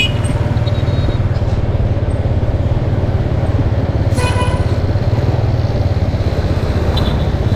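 Motorbike running steadily at riding speed, its engine hum mixed with road and wind noise on the microphone. A short beep sounds about four seconds in.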